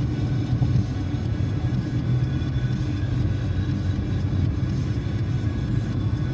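Steady low rumble of a car's engine and tyres on the highway, heard inside the cabin while cruising.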